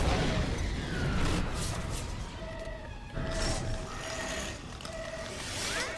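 Animated sci-fi explosion sound effect: a spaceship blowing up in a hangar as its engines self-destruct, a sudden blast with a deep rumble that dies away over a few seconds. From about halfway on a mid-pitched tone repeats in short pulses.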